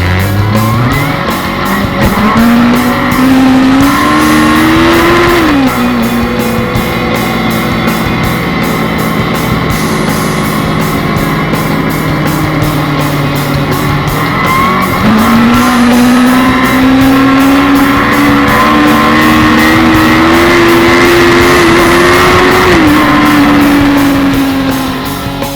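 Inline-four sportbike engine accelerating hard. Its pitch climbs for about five seconds, drops suddenly, holds lower for several seconds, then climbs again for about eight seconds and drops near the end. Rock guitar music plays over it.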